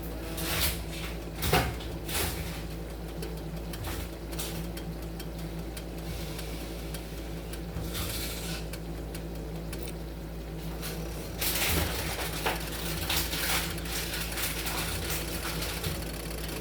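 Kitchen utensils and dishes being handled: scattered clinks and knocks, busier about eleven and a half seconds in, over a steady low hum.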